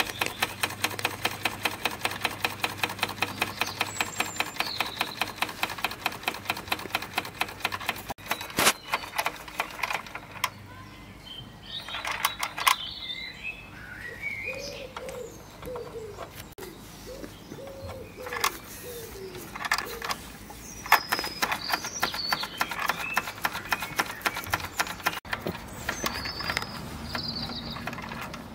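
Wilesco D20 model steam engine running at speed, its exhaust and moving parts giving a rapid, even clicking beat. The beat thins out about eight seconds in and comes back in the second half. Birds chirp several times in the background.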